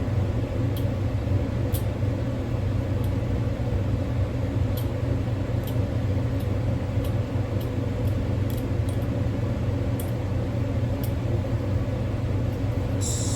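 Steady low machine hum, with faint scattered ticks over it. Near the end a high-pitched whine comes in.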